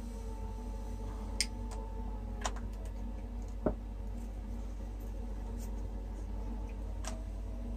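A cotton swab dabbing on glossy photo paper: four faint light clicks spread out over a steady low hum.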